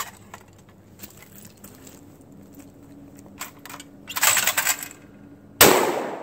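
A single 12-gauge shotgun blast from a Lynx 12 AK-pattern semi-automatic shotgun firing birdshot, about five and a half seconds in, with a long echoing tail. About a second before it comes a brief rattling clatter, and before that a few light handling clicks.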